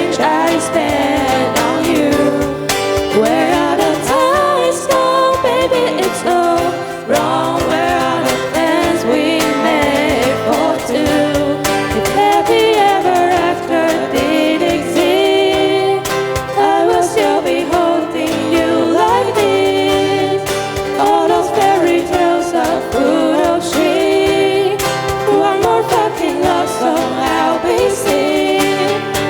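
Pop song with singing voices over a steady accompaniment.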